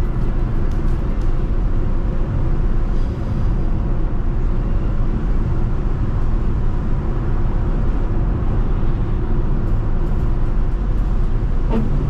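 Steady road and engine noise from a car driving on the interstate.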